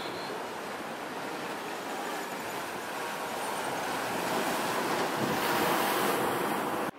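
Ocean surf washing in, a steady rush of breaking waves that swells louder over several seconds and cuts off suddenly near the end.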